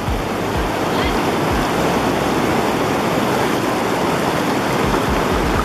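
The river Botnsá rushing steadily and loudly, with a few low thumps underneath.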